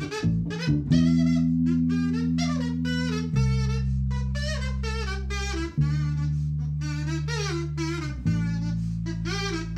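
A metal kazoo buzzes a bending jazz-fusion melody over an electric bass guitar. The bass plays a few quick notes at first, then long held notes that change about every two and a half seconds.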